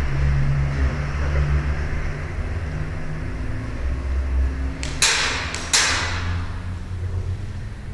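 Two sharp airsoft gun shots, about 0.7 s apart, over a steady low rumble.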